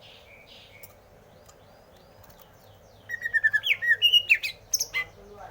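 Greater green leafbird (cucak hijau) singing: about three seconds in, a rapid two-second burst of loud, varied whistled notes and chirps that glide up and down in pitch.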